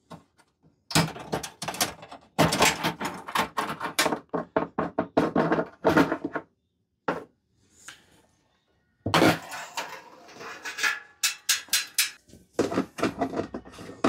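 A diesel heater's outer cover rattling, clicking and knocking as its side clips are undone and the cover is worked loose and lifted off: two stretches of quick clicks and thunks with a short quiet gap between them.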